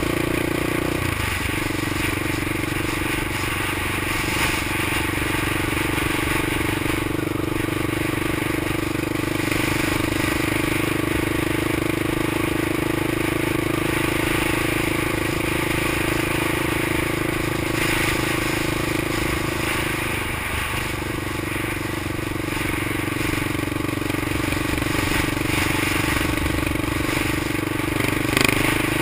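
Honda XR650L single-cylinder four-stroke engine of a street-legal three-wheeler running steadily under way at cruising speed. Its even drone dips briefly about a second in and again around twenty seconds in, then wavers near the end.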